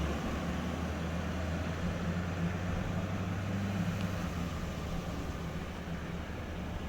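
Steady low hum of a car heard from inside the cabin, with an even background hiss and no distinct events.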